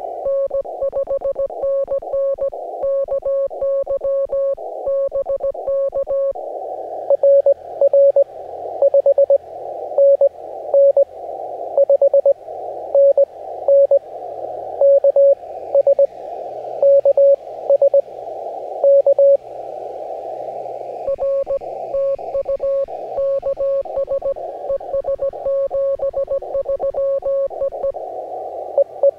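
Morse code (CW) on an amateur radio in the 17-metre band: a single mid-pitched tone keyed into dots and dashes. For about the first six seconds the tone is clean. After that the keyed tone, louder, comes through a narrow band of receiver hiss.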